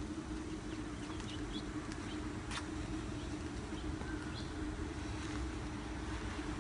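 Steady outdoor background hiss in light rain, under a low steady hum, with a few faint bird chirps and a single faint click about two and a half seconds in.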